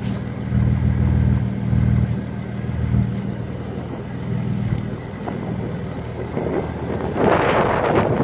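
Rat rod truck's engine running at idle, its level swelling a few times in the first three seconds. A rush of noise comes in near the end.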